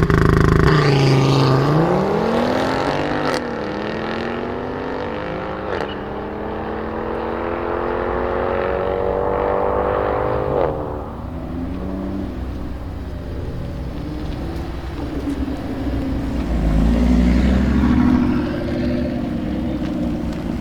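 Tuned Audi RS3 Sportback's turbocharged five-cylinder engine through a Milltek exhaust, accelerating hard through the gears. Its pitch rises in each gear and drops at quick upshifts about three and six seconds in, each with a sharp crack. A long pull ends with another crack about eleven seconds in, after which the engine runs at lower, wavering revs and swells louder again near the end.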